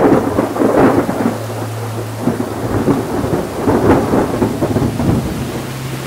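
Heavy rain pelting down, a dense crackle of drops that starts abruptly, with a steady low hum underneath.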